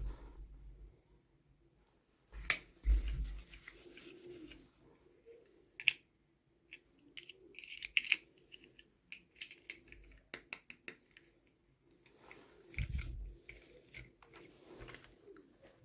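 Small plastic toys and their packaging handled during unboxing: scattered clicks and rustles, with a few dull thumps about three seconds in and again near the end.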